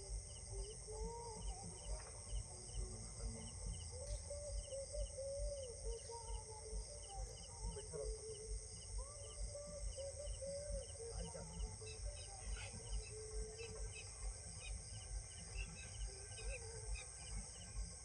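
Outdoor ambience of insects shrilling steadily, with short chirps in quick pairs about twice a second and birds calling in wavering notes. Under it runs a regular low thump about two to three times a second.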